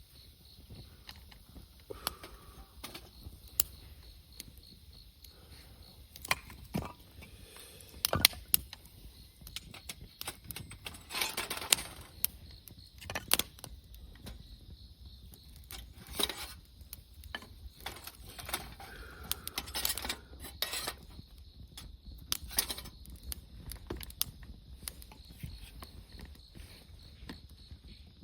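Wood campfire crackling, with irregular sharp pops and a few louder snaps. Crickets chirp steadily in the background.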